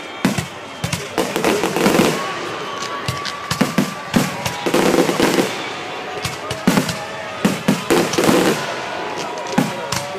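Fireworks display: shells bursting in repeated sharp bangs with crackling between them, and a few thin whistling tones.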